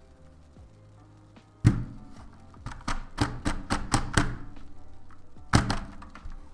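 Mechanical keyboard keys being pressed down with a deep thock: one heavy thunk, a quick run of about eight key clicks, then another heavy thunk near the end. Soft background music plays underneath.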